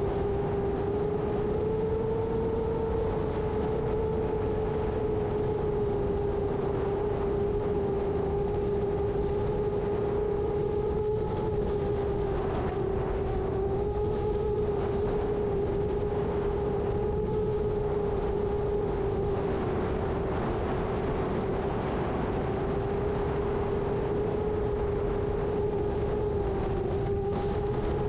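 7-inch FPV quadcopter's motors and propellers whining at a steady, slightly wavering pitch in flight, over a constant low rush of strong wind.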